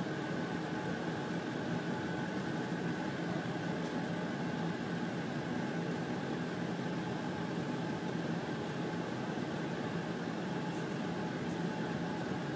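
Steady mechanical hum and whir with a few constant tones running through it, unchanging in level.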